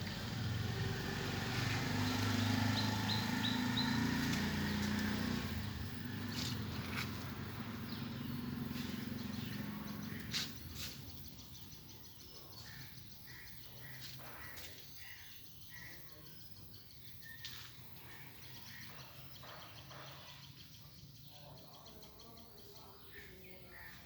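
Outdoor ambience: a low, steady rumble for about the first ten seconds, then quieter, with scattered clicks and faint bird chirps.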